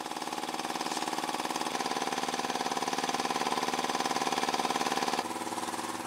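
A small engine running steadily with a fast, even chug. Its tone shifts a little about two seconds in, and it drops in level near the end.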